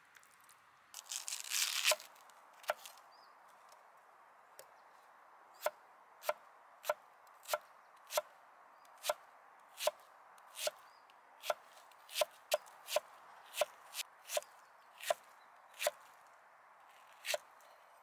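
Knife slicing a red onion on a wooden cutting board: a steady run of crisp cuts, about one or two a second, each one the blade striking the board. A short rustling noise about a second in.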